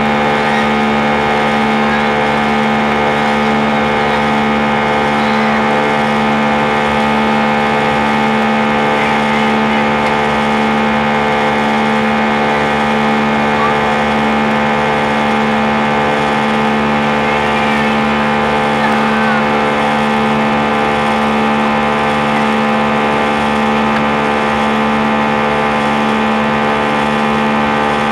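Airbus A319's jet engines heard from inside the passenger cabin during the climb after takeoff. The engines give a steady, unchanging drone of several held tones over a low rumble, and a low hum is the strongest of them.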